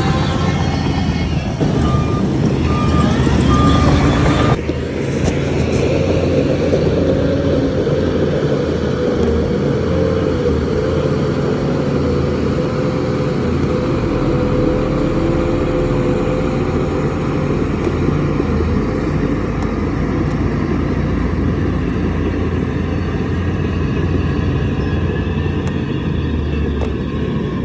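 Heavy diesel engine of earthmoving machinery running steadily under load. The sound changes abruptly about four and a half seconds in, with a few short beeps before the change.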